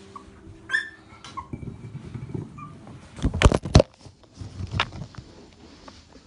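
Two short puppy yelps about a second in, followed by rustling and a few loud knocks of the camera being handled, the loudest about three and a half seconds in.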